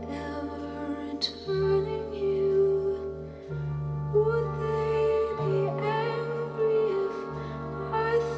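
Music played back from a vinyl record on a Kuzma Stabi turntable: a slow piece with a held, wavering melody line over sustained bass notes that change every second or two.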